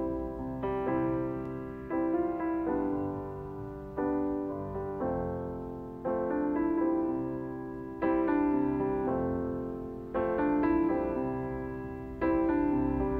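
Slow, gentle piano music: chords struck about every two seconds, each left to fade before the next.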